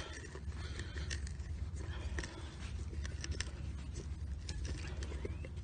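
Aluminium frying pan being bent back and forth where bolt cutters have notched it beside the riveted handle, working the metal toward a fracture: scattered light clicks and scrapes of metal, over a steady low hum.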